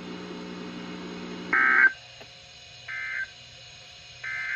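Three short bursts of SAME digital data tones, the Emergency Alert System end-of-message code that closes a NOAA Weather Radio test broadcast, each about a third of a second long and spaced about a second and a third apart. The first burst is louder than the other two. Before the first burst there is a low steady hum on the radio signal.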